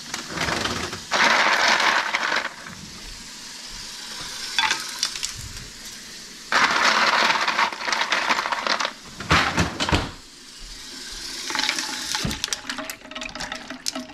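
Ice cubes clattering and clinking as they are tipped onto blanched green beans to chill them. There are two rattling bursts, about a second and a half and three seconds long, with a few sharp knocks near the end.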